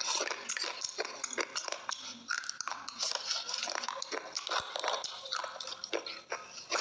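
Close-up wet chewing of a slate-pencil paste: many quick sticky clicks and smacks of the mouth working a soft, wet mass.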